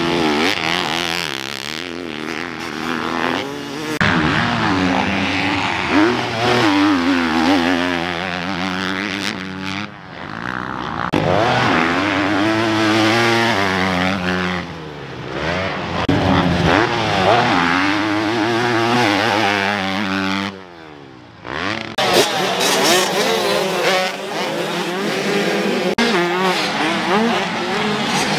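Dirt bike engines revving on a motocross track, pitch climbing and falling with throttle and gear changes, one bike after another with abrupt cuts between them.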